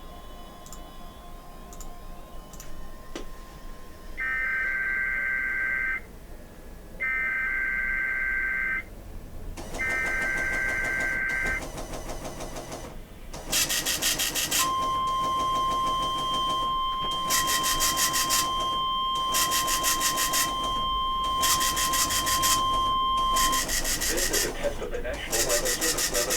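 NOAA Weather Radio Required Weekly Test broadcast: the digital SAME header sounds as three short bursts of harsh two-tone warbling data, then a steady high alert tone holds for about nine seconds amid choppy bursts of noise.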